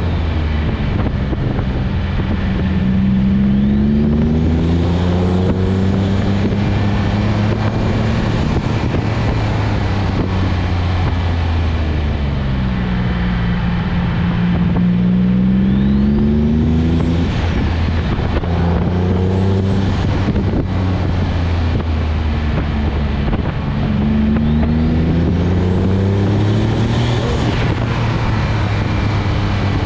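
Twin-turbocharged Nissan 350Z's 3.5-litre V6 engine under way, its pitch rising and falling again and again as it accelerates and eases off, over steady road and wind noise.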